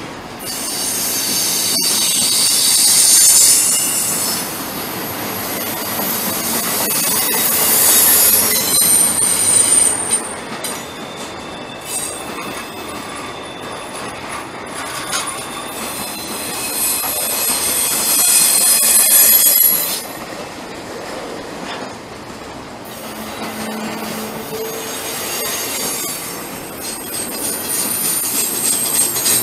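Union Pacific intermodal freight train rolling by with its wheels squealing. The high squeal swells and fades several times over the steady noise of the cars, with scattered clicks of wheels on the rail.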